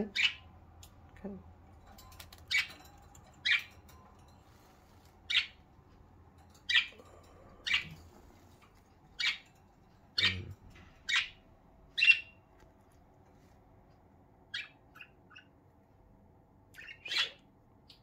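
Budgerigar chirping: about a dozen short, sharp calls one at a time, roughly a second or so apart, with a few softer, quicker ones near the end.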